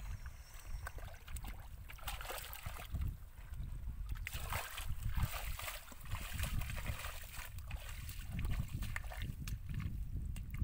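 Wind rumbling on the microphone, with irregular rustling and wet steps as bare feet walk through grass along a muddy, wet path.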